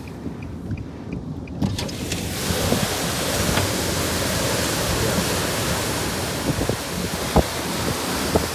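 Storm wind gusting against a parked car, rising to a loud steady rush about two seconds in, with a few knocks near the end.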